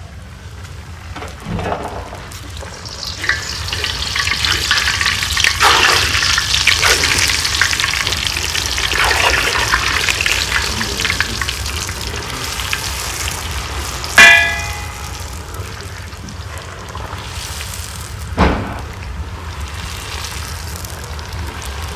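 Pişi dough frying in a pan of hot oil: a steady sizzle that swells a few seconds in and stays strong for several seconds before easing. A sharp ringing metal clink about fourteen seconds in, and a knock about four seconds after it.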